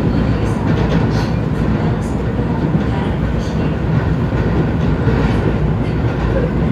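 Seoul Subway Line 2 train running between stations, heard inside the passenger car: a steady wheel-on-rail rumble with faint clicks now and then.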